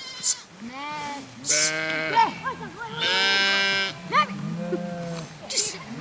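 A flock of sheep bleating, several calls overlapping. The loudest is a long steady bleat about three seconds in.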